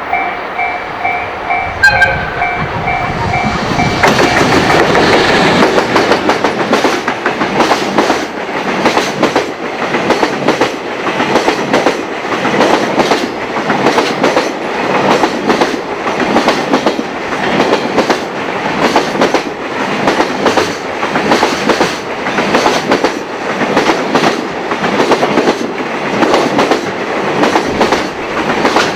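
Level-crossing warning bell ringing in rapid even pulses. About four seconds in, a long freight train reaches the crossing, and its wheels clatter over the rail joints in a steady, fast rhythm that carries on without a break.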